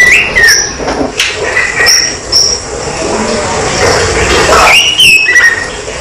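Caged tledekan flycatcher singing short phrases of clear whistled notes, some sliding down or up between pitches, in three bursts: at the start, around two seconds in and about five seconds in. A steady noisy hum runs underneath.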